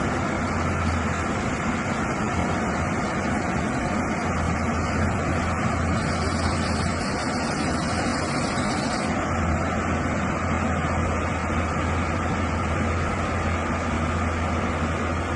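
Heavy diesel machinery running steadily, a constant low engine rumble. A higher hiss rises over it for about three seconds, a little after halfway.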